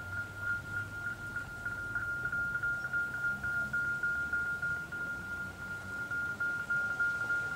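Level crossing warning bell ringing steadily on one high note, about three strikes a second, while the crossing is active.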